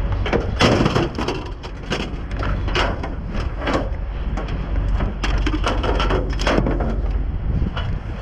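Trash and debris being rummaged and shifted in a dumpster: a run of irregular crunches, cracks and clatters, over a steady low rumble.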